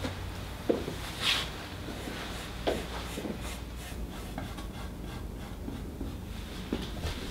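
Paintbrush stroking and dabbing on a canvas: one louder swish about a second in and a quick run of faint short strokes in the middle, with a few light knocks.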